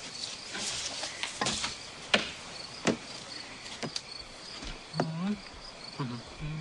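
Crickets chirping steadily under a series of sharp knocks and scrapes, about one a second, with two short low hums near the end.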